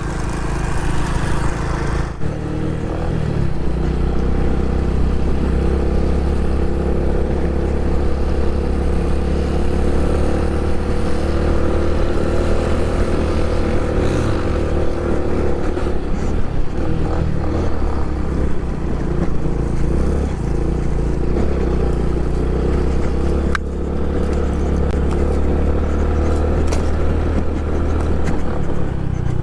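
Honda Pop 110i's small single-cylinder engine running steadily while riding a dirt road, with a low rumble of wind and road under it. The engine note drops briefly twice, about two seconds in and again near the end.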